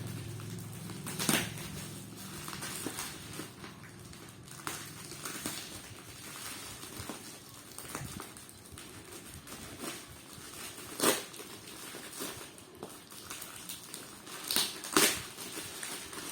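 Parcel packaging being unwrapped by hand: steady rustling and crinkling, with sharp crackles about a second in, about eleven seconds in, and twice near the end.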